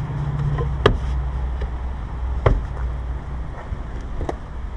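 Hyundai iLoad van idling with a steady low hum, and three sharp knocks about a second and a half apart as the newly fitted side mirror is pushed and checked for tightness.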